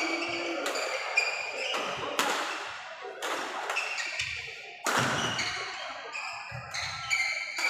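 Badminton rackets hitting shuttlecocks, sharp irregular smacks, with shoes squeaking and thudding on a wooden court floor in an echoing hall.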